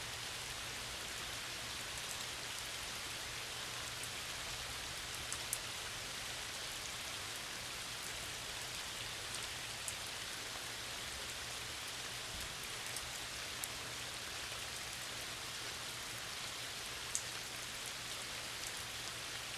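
Steady rain falling on a lake's surface: an even hiss, with now and then a single close drop landing in a sharp tick.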